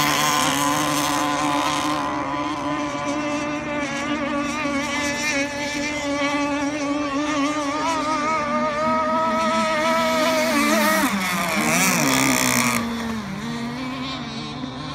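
Gasoline-powered RC racing catamarans running flat out on the water, their small two-stroke engines giving a steady high-pitched buzzing whine that wavers in pitch. About three-quarters of the way through the pitch swings down and up, and then the sound grows fainter near the end.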